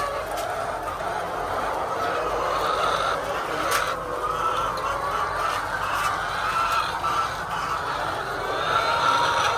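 A large flock of laying hens in a poultry shed, many birds calling and clucking at once in a continuous chatter, with a few sharp clicks.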